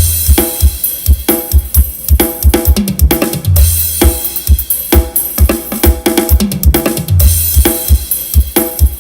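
Drum-driven music played through a 15-inch P Audio subwoofer in an OD15 test enclosure: steady kick-drum beats and deep bass notes under snare and cymbal hits, loud.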